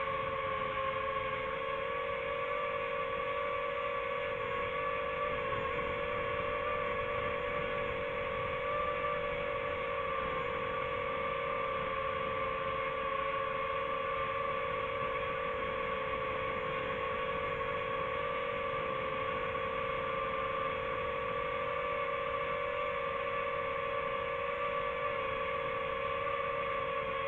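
A hovering drone's motors and propellers give a steady whine with two strong tones that waver slightly now and then.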